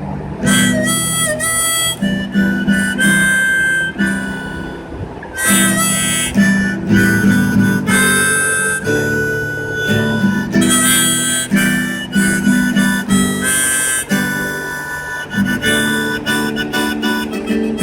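Harmonica playing phrases of chords and held single notes, with a short break in the middle.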